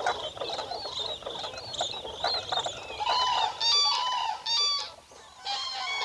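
A flock of common cranes calling: many thin, high squeals of the brown juveniles fill the first half, then louder adult clanging calls come in several bursts from about three seconds in, with a short pause near the five-second mark.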